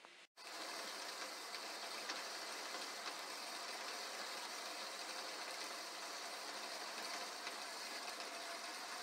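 Vertical bandsaw cutting through steel flat plate: a steady hiss of the blade in the metal, with a faint high ring over it. It starts about half a second in.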